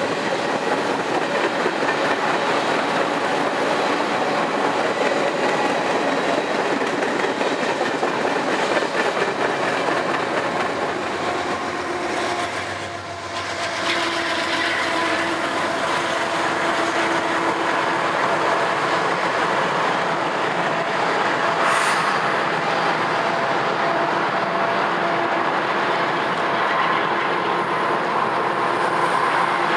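Empty coal cars of a long freight train rolling past with a steady rumble and clatter of wheels on rail. About halfway through, the rear distributed-power locomotive, a GE AC4400CW, passes with its diesel working, and steady engine tones rise over the car noise.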